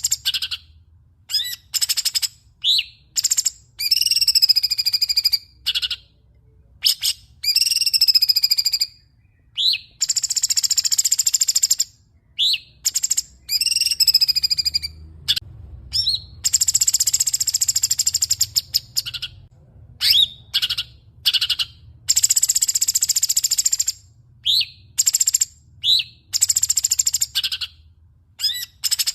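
Songbird singing in quick bursts of high chirps, whistled notes that bend and fall, and buzzy trills, with short gaps between phrases, over a faint low hum.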